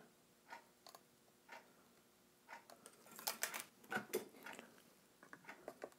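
Faint scattered clicks and small crackles, thickest about three to four seconds in, as solder is melted onto the top of a volume potentiometer with a soldering iron to join a pickup ground wire.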